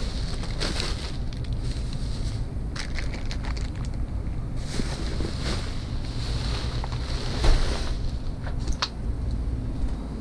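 Wind buffeting the microphone as a steady low rumble, over rustling of plastic and packaging and scattered clicks and knocks as discarded goods are rummaged through, with a louder bump about seven and a half seconds in.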